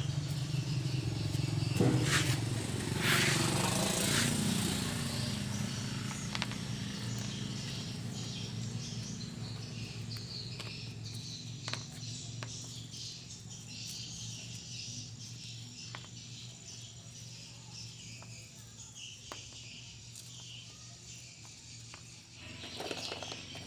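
Steady low machine hum with several held tones, slowly fading away, with a few light clicks.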